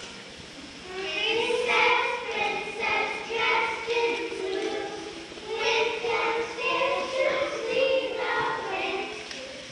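A group of young children singing together, starting about a second in.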